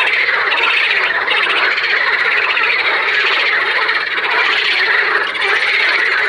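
A chorus of many frogs calling at once: a dense, steady mass of overlapping pulsed croaks and trills.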